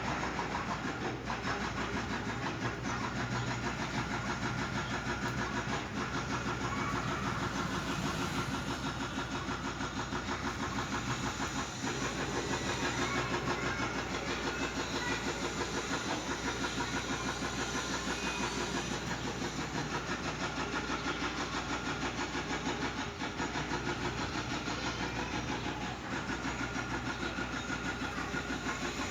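An engine running steadily, with a fast, even pulsing.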